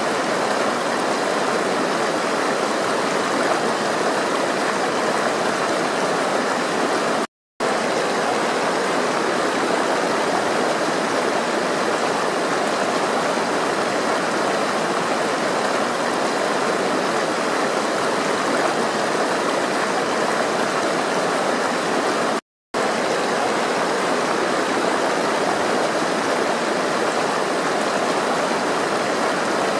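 Flowing water rushing steadily, with two brief cuts to silence, about seven seconds in and about twenty-two seconds in.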